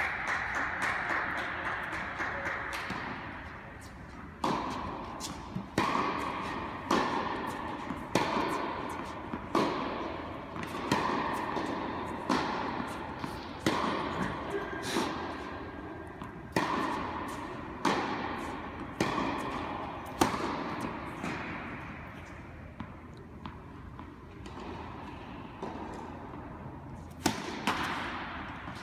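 Tennis balls being struck with rackets and bouncing on an indoor court, each hit sharp and echoing around a large hall. For long stretches the hits come about every second or so, as in a rally.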